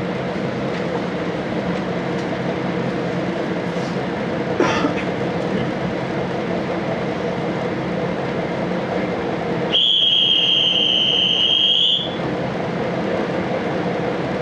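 KiHa 40 diesel railcar running steadily, heard from inside the passenger car as a constant rumble and hum, with a single clunk about four and a half seconds in. About ten seconds in, a high-pitched train whistle sounds once, held for about two seconds.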